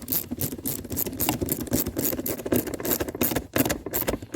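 Ratchet clicking steadily, about four or five clicks a second, as a hose clamp is tightened down.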